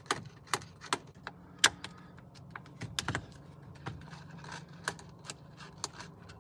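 Screwdriver backing out the small screws that hold the clock spring (spiral cable) to the steering column: sharp, irregular clicks and taps of the tool on the screws and plastic housing, more frequent and louder in the first three seconds, sparser after.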